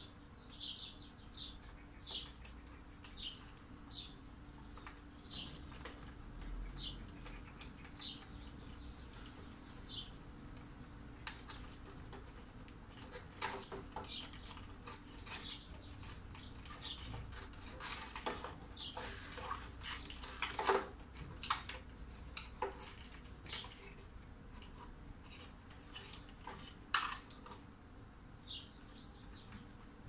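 A small bird chirping, short high downward notes about once a second through the first third and again near the end. Around them come scattered clicks and taps of hands handling the vacuum cleaner's wires, plastic terminal block and switch housing, with sharper clicks about 20 and 27 seconds in.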